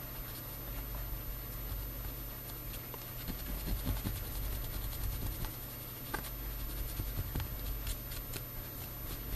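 Cotton swab rubbing metal polishing powder over a small black-primed model radiator: faint scratchy brushing with a few light clicks, over a low steady hum.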